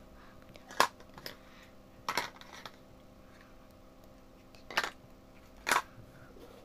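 Small hard plastic doll pieces clicking and tapping against a wooden tabletop as they are handled and set down: about five sharp clicks, the loudest about a second in.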